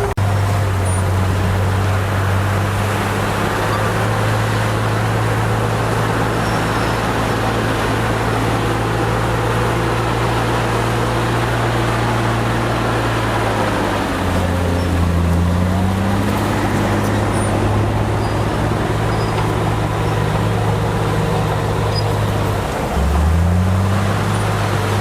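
Heavy diesel engine of earthmoving equipment running hard. About halfway through its pitch drops for a couple of seconds, and again near the end, each time climbing back up as the load changes.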